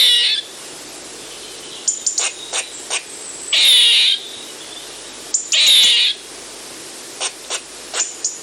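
Eastern gray squirrel calling: a run of short sharp chips broken by longer harsh, raspy calls of about half a second each, which come every two seconds or so.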